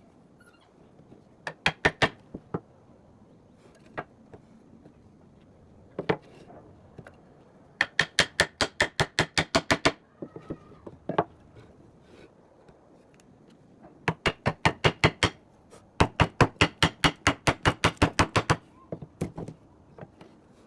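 Sharp knocks of a tool striking wood, in quick even runs of about six strikes a second, with a few single knocks in between.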